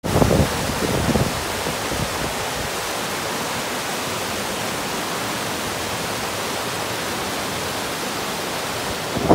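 Mountain creek rushing in small cascades over granite boulders: a steady, even rush of whitewater, with a little more low rumble in the first second or so.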